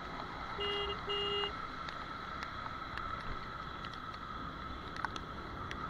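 Steady noise of a scooter riding through heavy rain on a wet road, with two short horn beeps about a second in and a few faint ticks.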